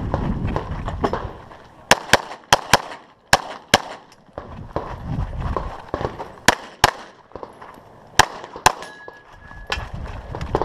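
Glock 34 9mm pistol firing rapid shots, mostly in quick pairs, about a dozen in all with short pauses between the strings.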